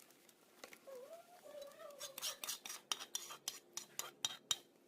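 A utensil clinking and scraping against a dish, a run of sharp clicks starting about halfway through. Before that there is a faint wavering tone.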